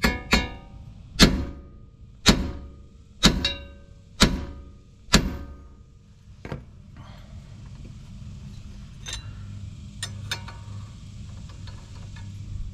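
A small sledgehammer strikes the raised nut on an outer tie rod end's stud, a series of about seven ringing metal-on-metal blows roughly a second apart. It is trying to knock the tight tapered stud out of the steering knuckle, and the nut is beginning to mushroom over. A few light clinks of a wrench follow.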